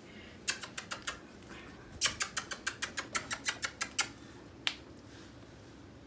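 A series of short, sharp clicks: about five in quick succession half a second in, then a faster run of about a dozen clicks from two to four seconds in, and one last click near five seconds.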